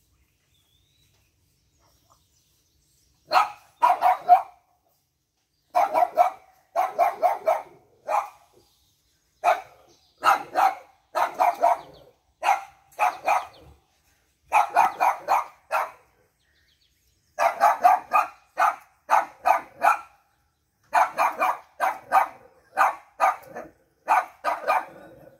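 Pug puppy yapping in play, short high yaps in quick bursts of two to five, starting about three seconds in and repeating with brief pauses.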